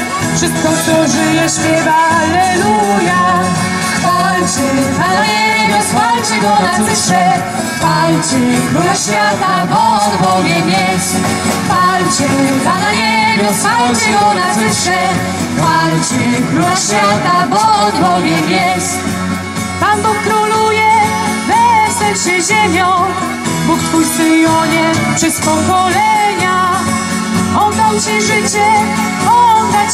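Live band playing a song: women's voices singing over acoustic guitar, keyboard and drum kit with cymbals.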